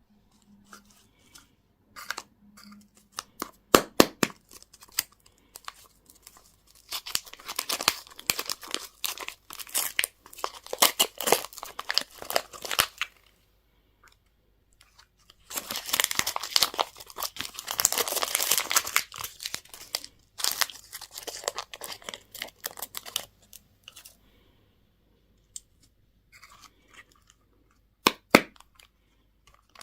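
Candy and toy wrapping being torn open and crinkled by hand, in two long stretches of dense crackling with scattered sharp clicks and crackles between them.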